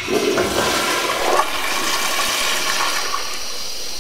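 Toilet flushing: a sudden gush of water, strongest in the first second and a half, easing into a steady rush of refilling water.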